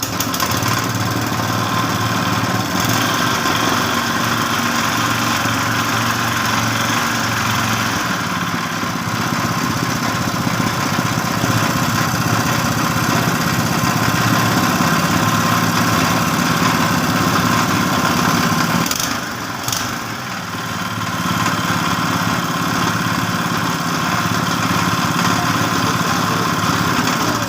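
GX200 single-cylinder four-stroke engine of a generator running steadily, with a brief drop in level about 19 seconds in before it steadies again.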